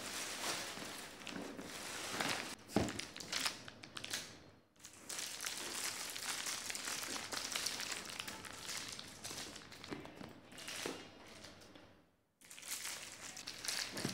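Plastic packaging crinkling and rustling as a handbag is unwrapped from its parcel, with handling clicks; the sound breaks off briefly twice.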